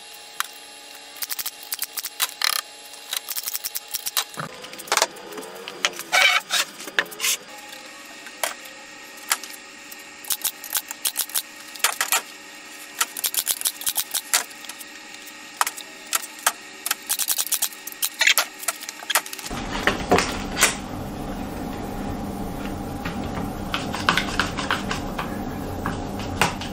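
Irregular clicks and knocks of cedar boards and a bar clamp being handled while a frame is glued and clamped. From about twenty seconds in, a louder, denser rattling joins.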